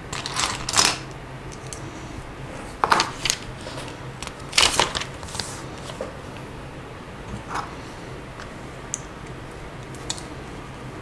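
Plastic Lego pieces clattering and clicking as they are picked through and handled, in a few short bursts of rattling with quieter gaps between.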